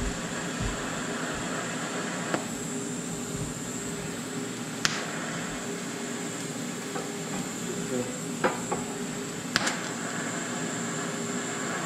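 TIG welding arc on a metal bracket plate, running with a steady hiss and a faint high-pitched whine. A few sharp clicks or ticks break through it, four in all.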